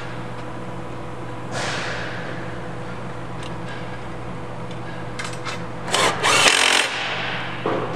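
Cordless drill-driver running as a screw is driven into an aluminium frame. About six seconds in comes a louder burst of metal parts being slid and knocked on the steel table.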